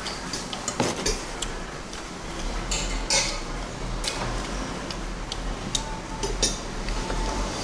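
A metal spoon clinks and scrapes against a ceramic plate while scooping fried rice, in irregular taps with one louder clink about three seconds in.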